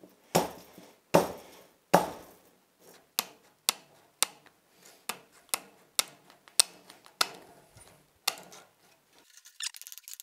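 Stainless steel wire being bent and rolled by hand into a tube: irregular sharp metallic clinks and rattles, one or two a second, each with a brief ring. Near the end a quicker run of fine ticking clicks starts.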